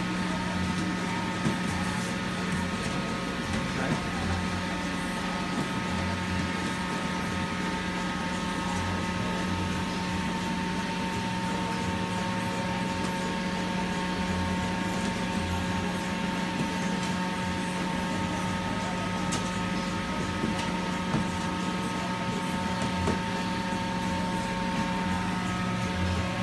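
Steady machine hum of bakery kitchen equipment: a low drone with a few steady higher tones over it, unchanging throughout.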